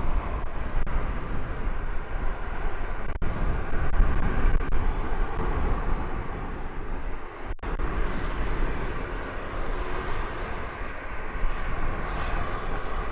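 Aircraft engines running at taxi power, a steady whine over a low rumble, with gusty wind buffeting the microphone.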